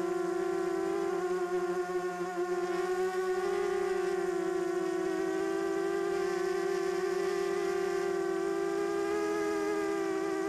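Diatone 250-size quadcopter's brushless motors and propellers running with a steady buzzing whine, the pitch wavering only slightly.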